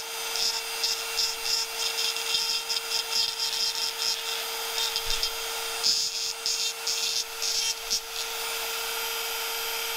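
Handheld rotary tool with a carbide burr whining at a steady pitch, grinding in short repeated bursts as it is touched to the cast-iron engine block to knock down casting flash. About two seconds before the end the grinding stops and the tool spins free.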